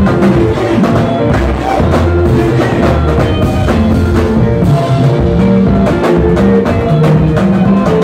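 Live Congolese rumba band playing a sebene, the fast dance section: drum kit driving a steady beat under guitars, played loud.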